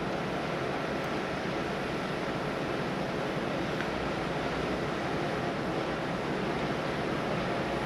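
Steady rumbling and rushing noise of fire apparatus running, with no distinct events.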